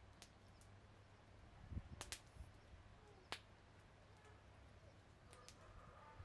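Near silence with a faint low hum, broken by a few short, sharp clicks.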